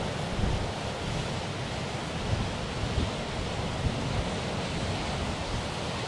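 Strong wind gusting against the microphone in irregular low buffets, over a steady rushing of wind and surf.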